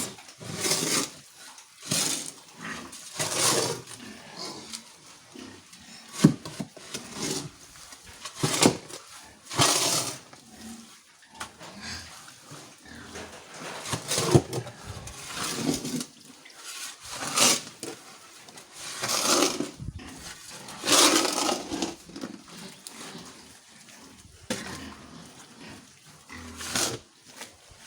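Pigs making noise in irregular bursts, a few seconds apart.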